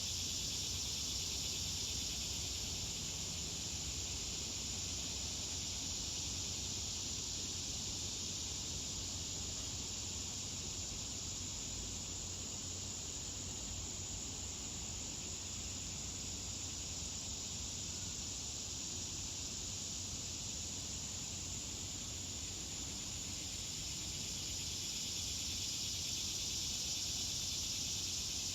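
Steady, unbroken high-pitched drone of a night insect chorus, with a faint low rumble beneath it.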